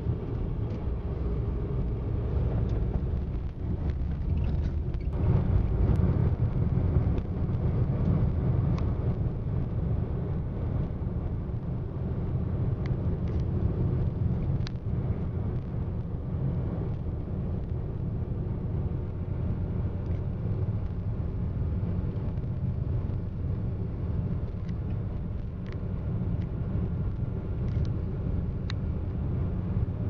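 Car driving steadily along an open road: a continuous low rumble of engine and tyres.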